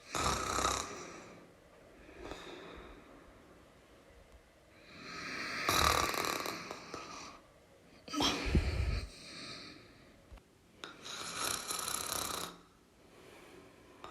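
A person snoring: four loud, breathy snores a few seconds apart, with fainter breaths between them. The snore about eight seconds in has a low rattling rumble.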